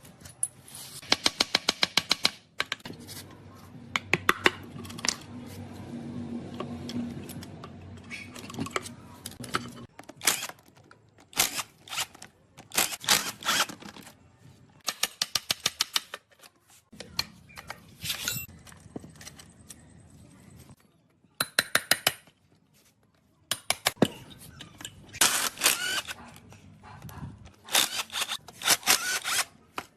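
Metal tools and parts clinking and scraping during hands-on workshop work on an old tractor. There are several runs of rapid, evenly spaced clicks, the first about a second in and another near 21 seconds in, with single knocks and clinks between them.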